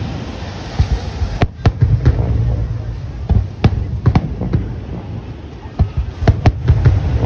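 Aerial fireworks shells bursting: about a dozen sharp bangs at irregular intervals over a steady low rumble.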